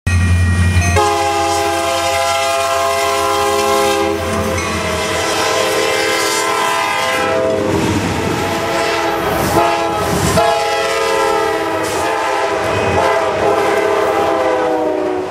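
Diesel locomotive air horn sounding a chord of several notes in long blasts, over the rumble of a passing train.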